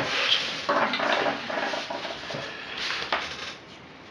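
Paper rustling and small clicks and knocks as a plastic ruler and a marker are laid down and handled on a paper-covered tabletop.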